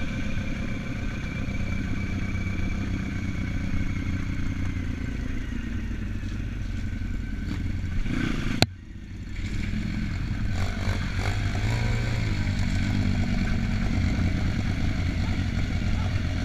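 Small four-stroke YX pit bike engine running under way, heard from a camera mounted on the bike, its pitch shifting a little with the throttle. About halfway through there is a sharp click and the sound drops out briefly before the engine comes back.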